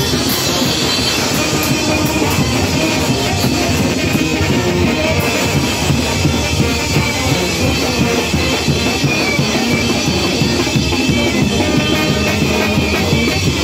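Mexican banda brass band playing loud, continuous music, with sousaphones and brass over a steady pounding of drums.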